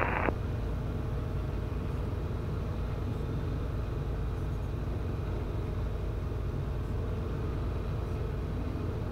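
Cabin noise of a Guimbal Cabri G2 helicopter in cruise flight: its Lycoming piston engine and rotors make a steady low drone with several even tones, unchanging throughout.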